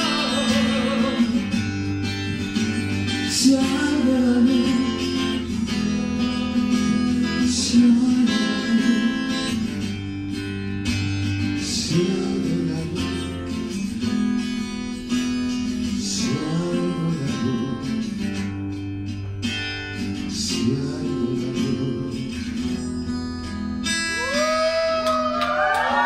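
Live acoustic song: an acoustic guitar strummed and picked with a singer's voice over it. Near the end, high whoops from the audience break in as the song closes.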